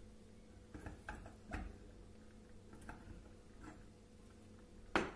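Faint scattered clicks and taps of plastic as a stuck, sticky plastic piece is pried at on a Turkish coffee pot (cezve), with one sharper click near the end.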